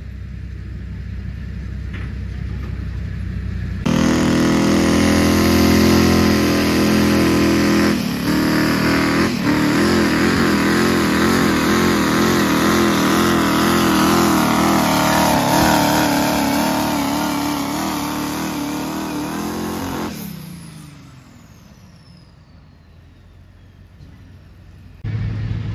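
Diesel pulling pickup truck at full throttle dragging a pull sled: the engine builds for a few seconds, then opens up hard at about four seconds and runs flat out, its pitch wavering as the truck bounces down the track, with two brief dips shortly after. At about twenty seconds it lets off and the engine drops away, a high whine sliding down, leaving a low rumble.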